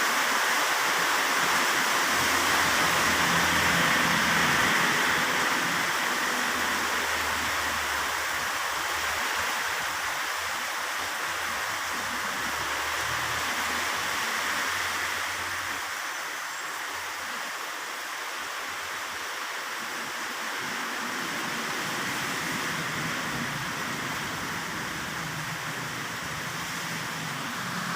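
Heavy rain falling, a steady dense hiss that grows a little quieter through the middle.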